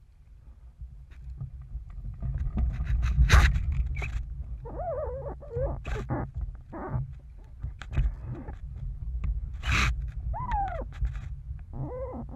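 RS Feva sailing dinghy underway: wind rumbling on the boat-mounted microphone, water splashing against the hull and sharp knocks from the boat's fittings, the loudest about 3 and 10 seconds in. A few short wavering vocal calls come through about halfway and near the end.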